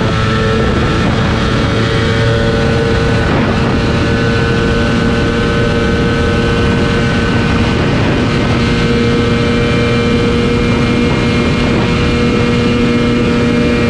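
Ducati Panigale V4R's V4 engine at high revs in sixth gear, accelerating past 300 km/h: a loud, steady engine note that creeps slowly up in pitch, over wind rush on the onboard microphone.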